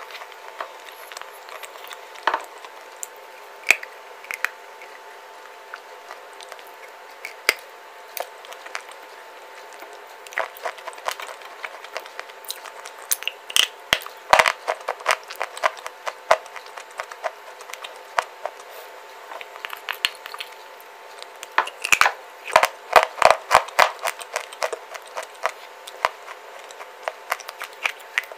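Clay bars being bitten and chewed close to the microphone: sharp, crisp crunches and cracks. They come scattered at first, then in two dense flurries, about halfway through and again about three quarters through.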